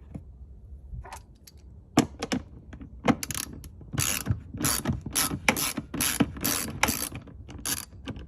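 Hand ratchet clicking in repeated back-and-forth strokes, about two a second, after a few scattered clicks at the start: screws holding down the cargo-area luggage tray being backed out.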